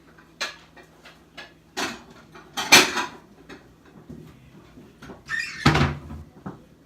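Kitchen clatter: a run of light knocks and clunks, with two louder bangs about three seconds in and again near the end.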